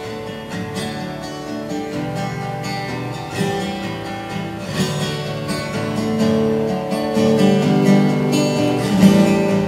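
Solo acoustic guitar playing the opening chords of a song, strummed and picked, growing gradually louder.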